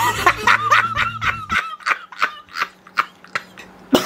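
A young man laughing in a string of short, breathy bursts, about three or four a second.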